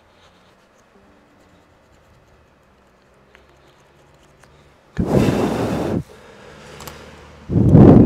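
Faint scratchy rubbing of a cotton swab on a small plastic laptop part, then two loud bursts of rushing, blown air, each about a second long. The first comes about five seconds in; the second comes near the end and is louder and deeper.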